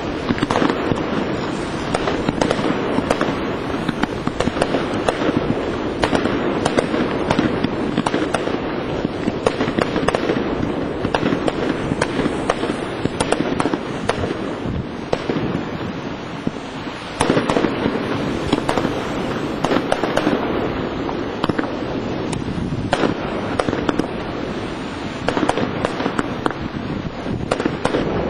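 Professional firework display: aerial shells bursting in quick succession, a dense, continuous barrage of bangs with no gaps, growing louder about 17 and 25 seconds in.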